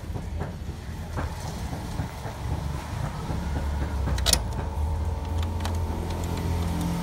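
A sharp click as the laser printer's cartridge drawer and levers are handled, about four seconds in, over a low steady rumble.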